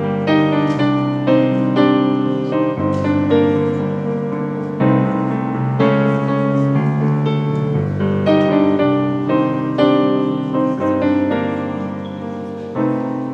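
Piano playing an instrumental interlude of a gospel hymn, sustained chords with a moving melody.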